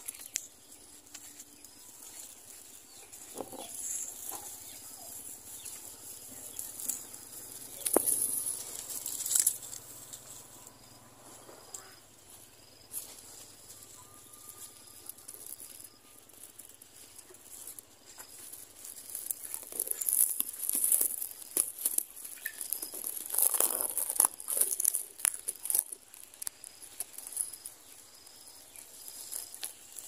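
Dry grass of a finch nest rustling and crackling right at the microphone, in irregular bursts that are loudest in the second half.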